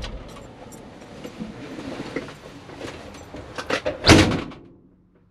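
The 1973 Ford F100's engine is switched off and its low rumble stops. Rustling and clicks follow as the driver gets out, then the cab door is slammed shut about four seconds in, the loudest sound.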